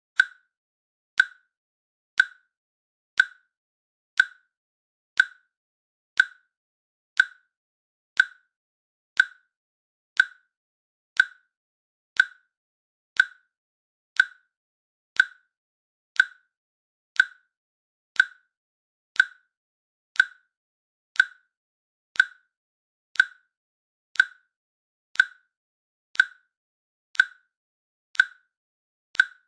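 A countdown timer's click sound, one short sharp click each second in a steady, even rhythm.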